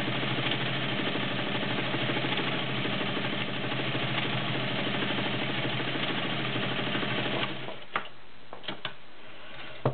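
All-metal Domestic 1465 sewing machine with a 1.3 amp motor, running steadily while it sews a decorative scallop pattern stitch. It stops suddenly about seven and a half seconds in, followed by a few light clicks.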